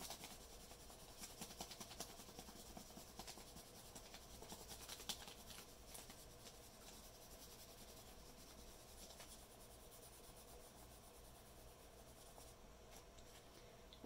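Faint scratching of a colored pencil held on its side and rubbed lightly back and forth over paper laid on a leaf, making a leaf rubbing; the strokes thin out in the second half.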